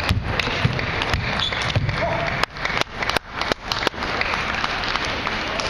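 Table tennis ball clicking sharply off bats and the table in quick irregular strikes, with the tick-tock of rallies on other tables and a murmur of voices in a large echoing hall.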